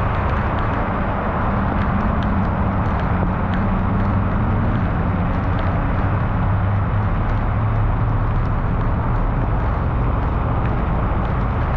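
Heavy rain falling steadily: a dense, even hiss with scattered ticks of single drops, over a low steady hum.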